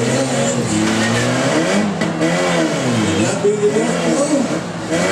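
Demolition derby car engines revving hard, several at once, their pitch rising and falling over one another.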